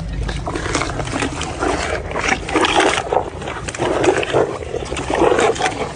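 An animal calling, several noisy calls about a second apart.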